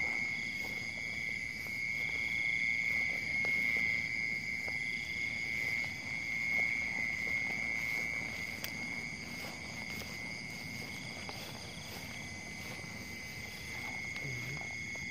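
Night chorus of frogs and insects: a steady high-pitched drone that holds unbroken throughout.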